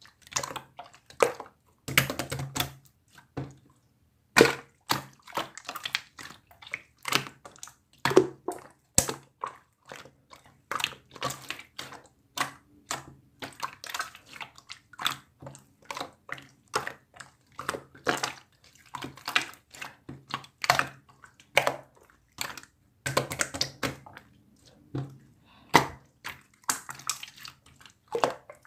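Irregular short wet squelching and splashing sounds, several a second, with no steady rhythm.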